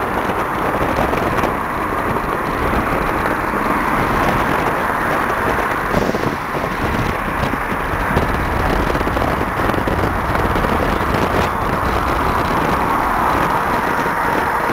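Cars driving in a convoy: steady engine and road noise.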